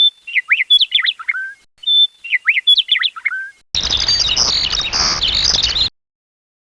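Lark song. A phrase of quick whistled notes sliding up and down is played twice, identical both times. It is followed by a denser, higher-pitched rapid warbling over a low rumble, which cuts off about six seconds in.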